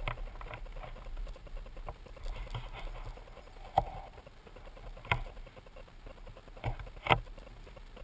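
Water slapping and spraying against a moving small boat and the camera's waterproof housing, heard muffled through the housing: about five sharp irregular knocks over a low steady wash, the loudest near the end.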